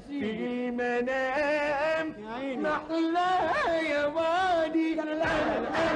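A man singing a slow, ornamented Arabic melody, his voice held on long wavering notes with quick turns. Near the end, a burst of audience noise comes in.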